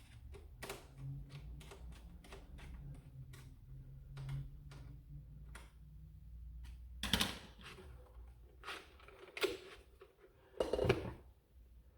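Handling clicks and light taps of plastic and metal parts as a sight is fitted to a toy blaster's rail and its mount nuts are put on, with a few louder knocks in the second half. A steady low hum runs underneath.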